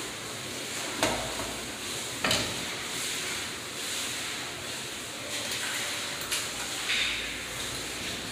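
Two sharp knocks, about a second and two seconds in, and a few lighter clicks later, over a steady hiss: the handling of a breaker panel's metal cover during fitting.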